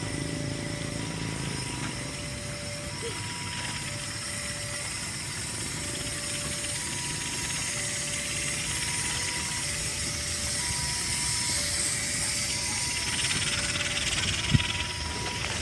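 Passenger train pulling slowly out of the station, its carriages rolling past with a steady rumble and hiss. An electronic warning alarm alternates between a low and a high tone about once a second, and there is a single sharp click near the end.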